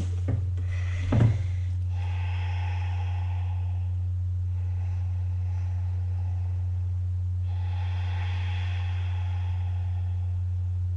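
A steady low hum, with two short sounds in the first second and a half, the second one louder, and faint soft sounds coming and going later.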